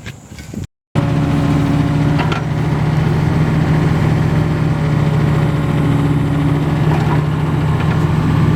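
An engine idling steadily, a constant low hum that starts abruptly just under a second in, after a few brief knocks.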